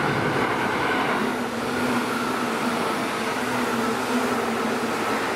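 Seibu Shinjuku Line electric train at the station, running with a steady noise, a high whine that sinks slightly in pitch, and a low hum.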